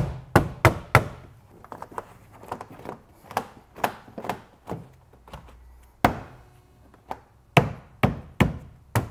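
Gloved hands knocking and pressing the plastic trim and its rubber seal back into place on the car body: a run of sharp, uneven knocks, loudest in clusters near the start, about six seconds in and near the end.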